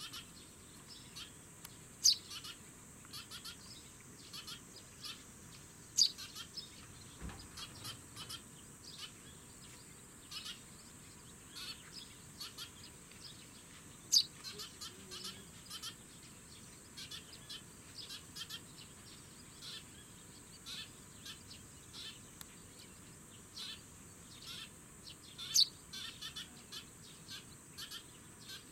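Eurasian tree sparrows chirping: a steady run of short, high chirps, with four louder, sharper chirps spread through, over a steady high insect drone.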